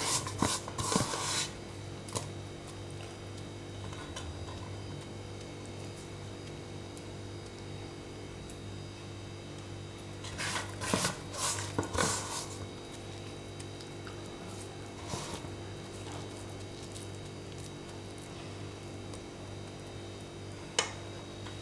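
Hands scooping and pressing crumbly rava laddu mixture against a steel vessel, heard as a few brief scraping rustles near the start, twice around the middle and once near the end, over a low steady electrical hum.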